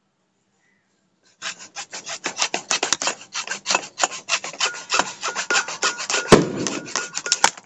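Hand hacksaw cutting through a PVC pipe, rapid back-and-forth rasping strokes starting about a second and a half in, with a louder knock of the blade about six seconds in.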